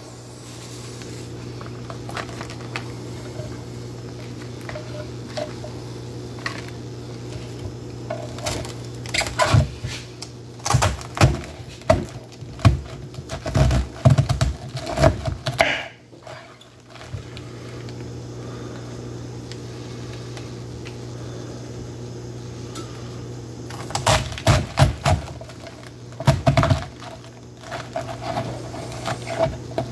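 Large kitchen knife cutting through a half head of green cabbage on a wooden cutting board: crisp crunching of the leaves and knocks of the blade on the board, in one long spell through the middle and a shorter one near the end. A steady low hum runs underneath.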